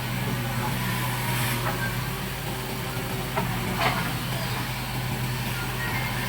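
Heavy diesel machinery engine running steadily with a low hum, with a couple of short, sharp sounds a little past halfway.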